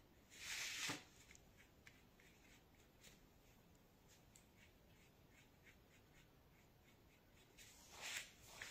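A sheet of painting paper being slid over the tabletop: a short papery scrape about half a second in and another near the end. Between them, only faint small ticks of brush and hands on the paper.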